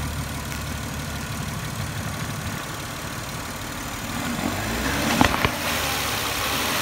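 Infiniti I30's 3.0-litre V6 engine idling steadily, getting louder about four seconds in, with two short knocks just after.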